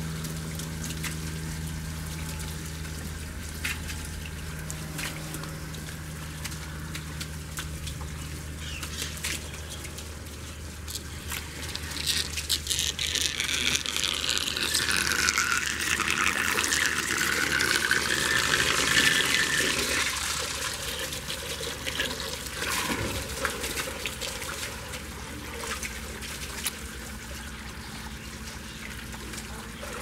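A strong stream of water gushing from a PVC pipe outlet and splashing onto tiles and wet ground, pushed by a homemade electric pump. The splashing grows louder for several seconds in the middle. A low steady hum fades out over the first ten seconds or so.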